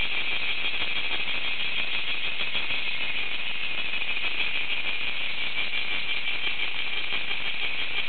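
Cicadas calling in a steady, continuous high-pitched buzzing chorus.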